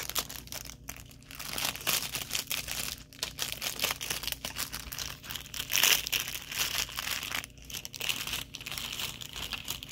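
Clear plastic wrapping crinkling and rustling in irregular bursts as it is handled and pulled open around a small bookmark, loudest about six seconds in.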